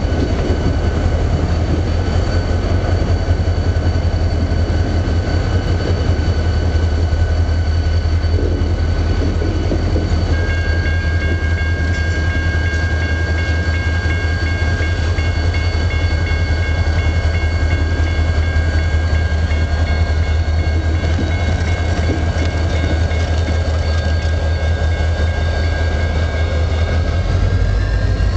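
CN diesel freight locomotives passing close by under power, engines running with a heavy, steady low rumble. A steady high-pitched whine joins about ten seconds in, and a rising tone comes in near the end.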